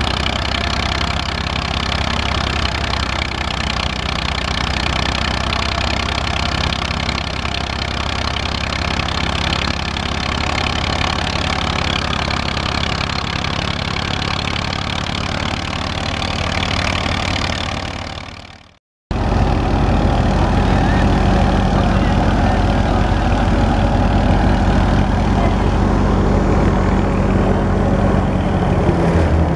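Massey Ferguson 240 tractor's three-cylinder diesel engine running steadily while driving a wheat thresher, the thresher's machinery running along with it. The sound fades and cuts out briefly a little past halfway, then carries on steady with a deeper hum.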